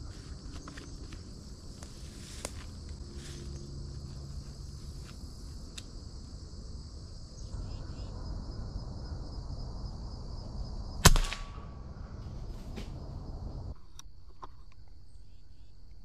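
Steady, high-pitched chorus of insects, with a single sharp knock about eleven seconds in that rings briefly.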